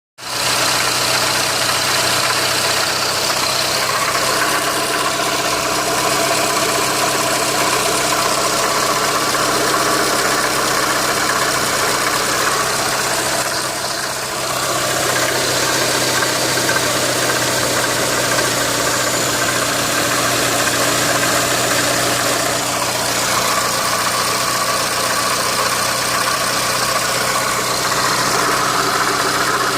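Renault Mégane II engine idling steadily with a knock in the engine.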